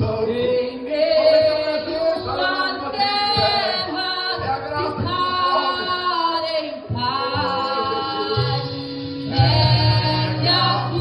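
Worship song: singing voices with instrumental accompaniment, with a deep bass line coming in about eight seconds in.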